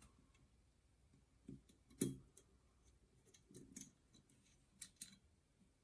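Light clicks and taps of small parts being handled in a Sig Sauer P320 pistol slide while the striker and rear cover plate are refitted: a few scattered clicks, the loudest about two seconds in.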